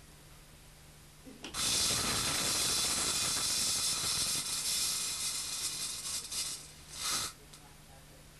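Spark-gap discharge of the microwave generator: a loud crackling hiss starting about a second and a half in and running about five seconds, then a short second burst about half a second after it stops.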